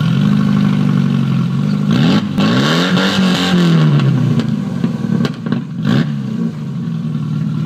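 Classic Mini MPi's 1.3-litre A-series four-cylinder engine running with no exhaust fitted. It is revved up and back down about two to four seconds in, then settles back to idle, with a few sharp pops.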